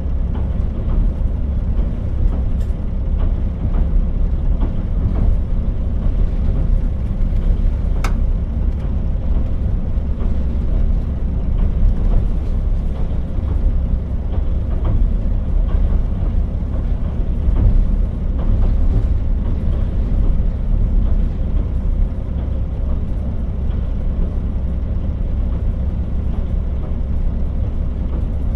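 KiHa 40 diesel railcar running along the line: a steady low rumble of engine and wheels on rail, with one sharp click about eight seconds in.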